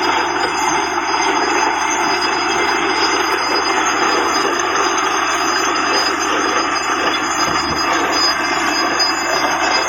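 Water borewell drilling rig running steadily: a loud, unbroken mechanical din with constant high whining tones on top.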